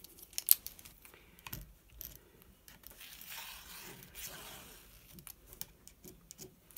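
Pen marking a line along a metal ruler on fabric and foam: a scratchy rubbing for about a second and a half near the middle. A sharp click about half a second in, with a few lighter clicks and taps around it.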